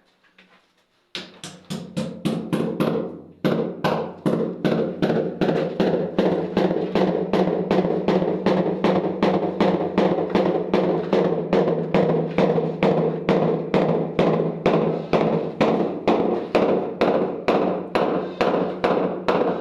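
Music with a steady, fast percussive beat of about two and a half strikes a second over a held tone, starting about a second in.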